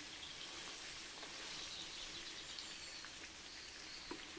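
Boiled beef pieces frying in coconut oil in a non-stick pan, giving a faint, steady sizzle with a few small ticks.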